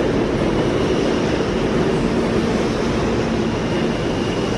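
New York City subway train, an R160, running through with a steady rumble and rush of wheel noise, and a faint high whine that comes and goes.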